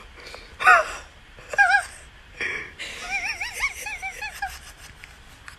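A person laughing with wheezy, gasping breaths and high, wavering squeaks of giggling, the longest run starting about three seconds in.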